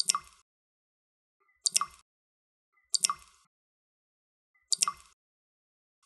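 Water dripping: four single drops, each a sharp tick followed by a short plop, falling slightly unevenly about every one and a half seconds.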